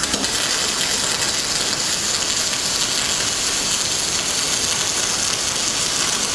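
MIG welding arc from a Tweco spool gun powered by a Thermal Arc Fabricator 181i, crackling steadily as a bead of aluminium is laid down, with sparks of spatter flying.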